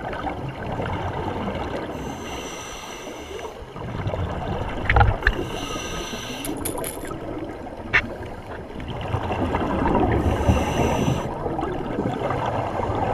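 Underwater sound through a GoPro housing: a scuba diver breathing through a regulator, with a hissing inhale about every four seconds and bubbling exhalations in between. Two sharp clicks or knocks, about five and eight seconds in.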